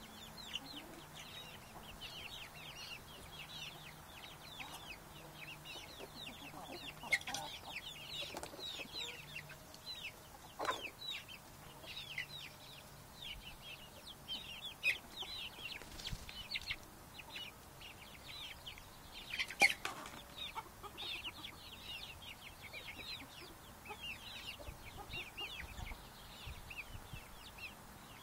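A flock of chickens feeding together, keeping up a steady chatter of short, high, downward-sliding calls and clucks. A few sudden louder sounds stand out, the loudest about two-thirds of the way through.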